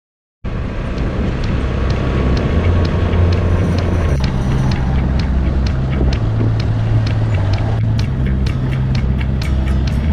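All-terrain vehicle (quad bike) engine running as it rides over a rough grassy track, starting suddenly about half a second in. The engine note steps up and down with the throttle, under a run of sharp ticks that come more often near the end.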